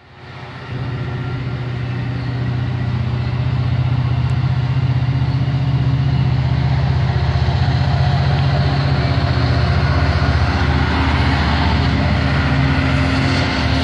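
Diesel locomotive (an EMD F59PHI) running under power as it pushes a passenger train away from the station. A steady low engine drone comes in about a second in, grows louder over the next few seconds, then holds.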